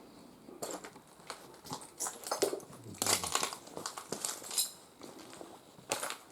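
Footsteps crunching over broken glass scattered on the floor, with shards scraping and clinking irregularly; a brief ringing clink of glass about four and a half seconds in.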